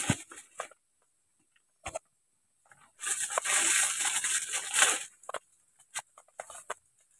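Plastic food packets crinkling and rustling in the hands, with one sharp click about two seconds in and a longer stretch of crinkling between about three and five seconds, then a few short rustles and clicks.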